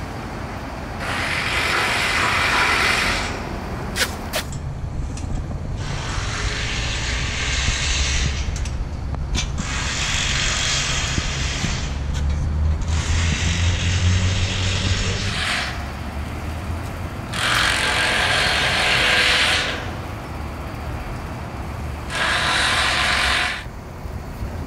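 Heavy machinery engine running with a steady low rumble, overlaid by repeated hissing bursts about two seconds long, six in all.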